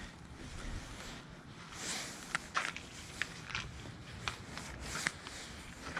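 Footsteps on rough ground, an irregular run of short sharp steps and scuffs.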